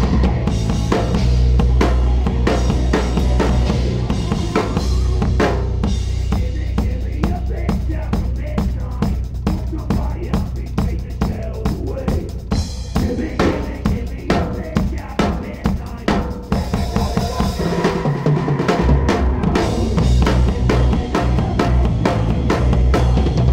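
Live band playing, with the drum kit to the fore: rapid kick, snare and cymbal hits over a steady low bass. The low end drops out for about a second near the end, then the full sound comes back in.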